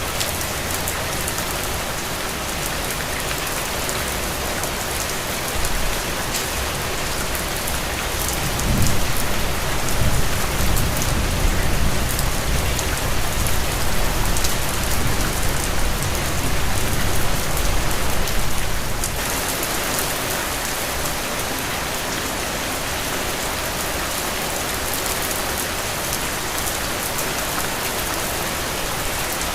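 Heavy rain falling steadily, with a low rumble of thunder rising about nine seconds in and fading out after about ten seconds.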